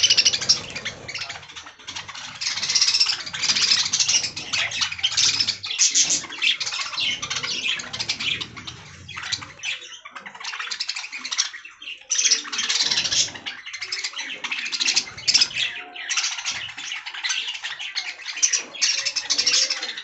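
A colony of budgerigars chattering and chirping, many birds calling at once in a continuous, busy stream.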